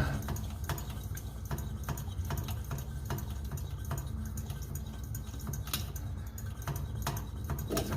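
Coleman 530 G.I. pocket stove's fuel-tank pump plunger being worked over and over, a short click or squish with each stroke, building air pressure in the tank before the stove is lit.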